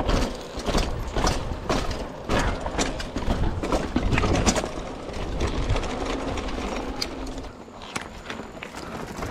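Mountain bike clattering and rattling as it rolls fast down a rough stone path and steps, many sharp knocks over a steady low rumble from the tyres.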